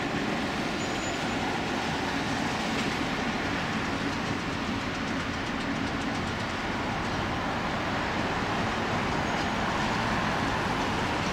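ChME3 shunting diesel locomotive running as it rolls past at low speed. Its ČKD six-cylinder diesel engine gives a steady drone that grows slightly louder near the end as the locomotive comes closer.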